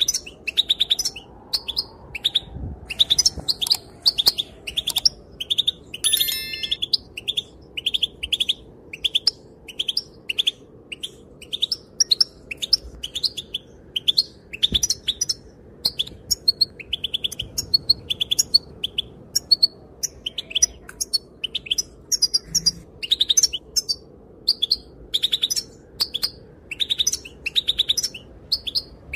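Female European goldfinch calling: a continuous, rapid run of short, high chirps and twitters, several a second, with no real pause.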